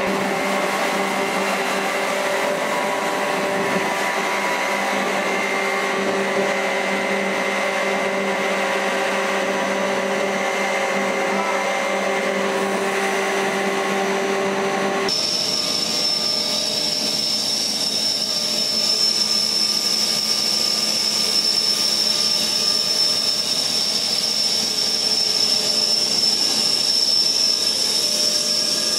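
Blown-film extrusion machinery running: a steady electric-motor hum with several steady tones. About halfway through the sound changes abruptly to a steady hiss with a high whine, from the gas burner ring under the film die and the air blower beside it.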